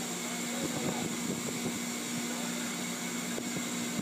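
Steady hum of industrial machinery and ventilation fans, with a few faint taps in the first two seconds.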